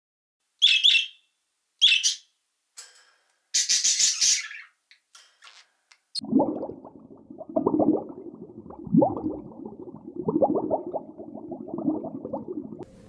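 Farm animal calls: a few short, high-pitched calls in the first few seconds, then a longer run of lower, pulsing calls, most likely from a different animal.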